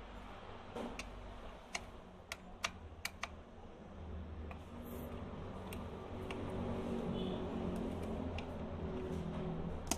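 Light, sharp clicks and taps from handling a hair clipper and its small plastic and metal parts, several in the first few seconds, over a low steady hum that grows louder from about halfway.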